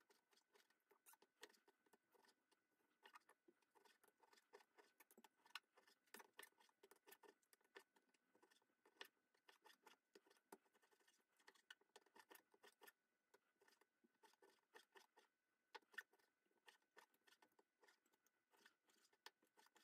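Faint, irregular taps and clicks of a chef's knife cutting raw pork into chunks on a cutting board.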